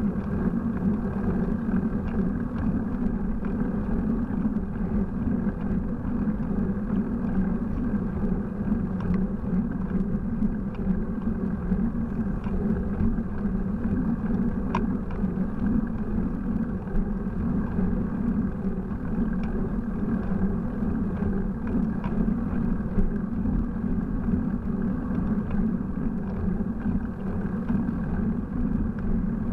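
Bicycle riding noise picked up by a handlebar-mounted camera: a steady rumbling hiss of tyres on asphalt and wind over the microphone, with a few faint ticks.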